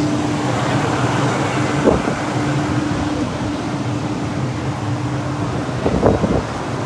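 Steady outdoor background noise with a low constant hum and wind on the microphone, with brief bumps about two and six seconds in.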